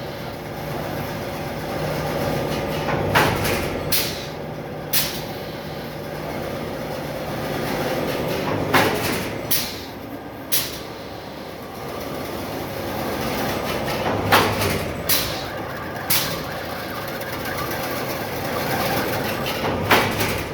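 Automatic chain-link wire weaving machine running: a steady motor hum with sharp metallic clacks that come in groups of two or three about every five to six seconds.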